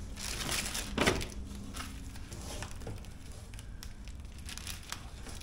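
Clear plastic packaging crinkling and rustling as it is pulled off by hand, with a louder crackle about a second in.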